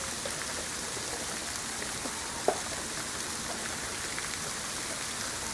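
Freezing rain falling steadily in an ice storm: a constant hiss of ice pellets and rain pattering down, with one short sharp tick about two and a half seconds in.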